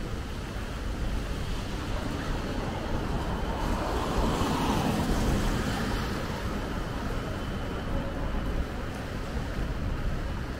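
Rainy city street ambience: a steady hiss of rain and wet-road traffic, with a vehicle swishing past on the wet road about four to six seconds in.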